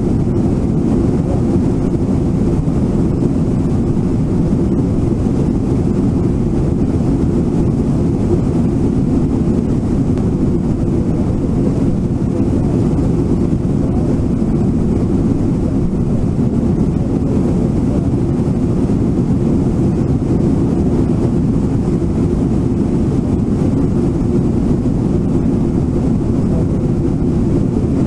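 Waterfall and river rapids rushing: a steady, even, mostly low-pitched noise that does not change in level.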